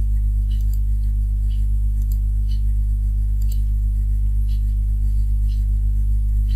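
Steady low electrical hum with several evenly spaced low tones, with faint irregular high ticks over it.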